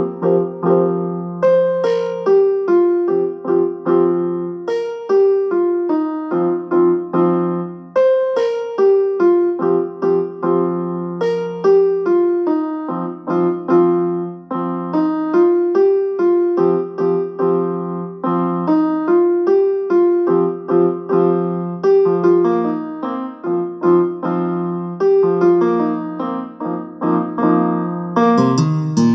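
Piano ringtone melody: a short phrase of struck notes over a held low note, repeating every few seconds. About a second before the end a fuller, brighter section begins.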